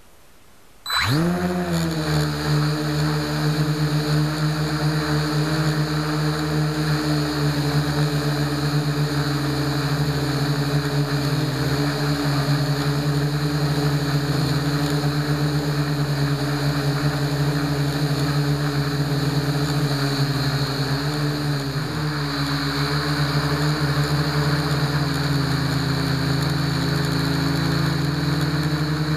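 Blade mQX micro quadcopter's four brushless motors and propellers starting up suddenly about a second in, then running steadily at flying speed, heard up close from a camera mounted on the frame. The pitch dips briefly twice as the throttle is shifted.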